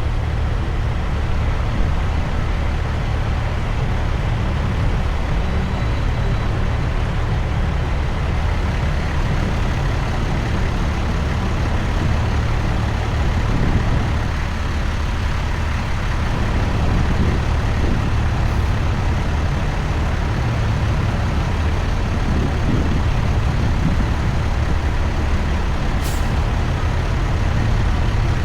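Heavy-haul semi truck's diesel engine running steadily, a deep, even rumble as it pulls a combination loaded to about 129,000 lbs. A single faint click near the end.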